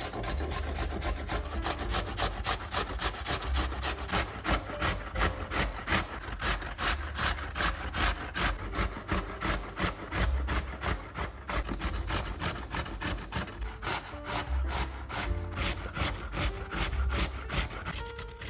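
Peeled raw potato rasped by hand up and down a stainless steel box grater in quick, even strokes, about three to four a second.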